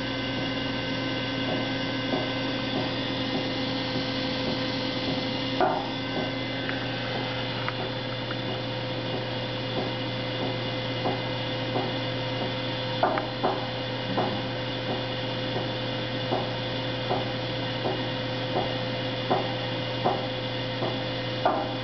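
Square steel tube test specimen creaking under a slowly rising hydraulic load: short sharp creaks about once a second, a few of them louder, over the steady hum of the test rig.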